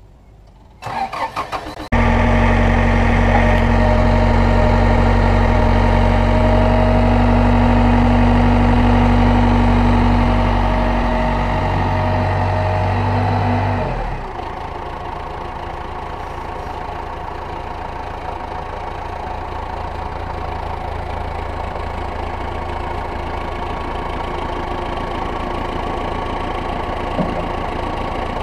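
Caterpillar forklift engine cranked over by the starter and catching about two seconds in, then running at raised revs with a steady whine as the hydraulics lift the mast. About halfway through the revs drop and it settles to a quieter idle while the mast is lowered.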